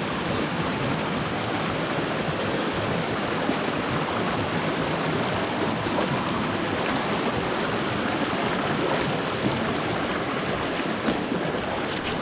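Forest mountain stream rushing steadily, running full after about 100 mm of rain.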